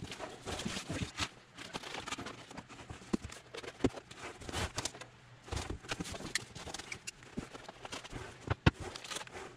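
Cardboard box and foam packing being handled while parts are lifted out: irregular rustling with scattered light knocks and clicks, one sharper knock near the end.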